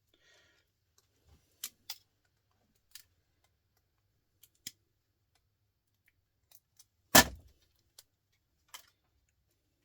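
Scattered sharp metallic clicks and snips of hand tools working on a small scrap electronic part, with one loud clunk about seven seconds in.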